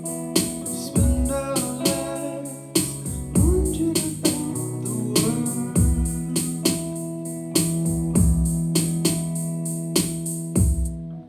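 Instrumental passage of a song: held electric keyboard chords over a steady beat with a deep kick drum and regular high ticks, cutting off abruptly near the end.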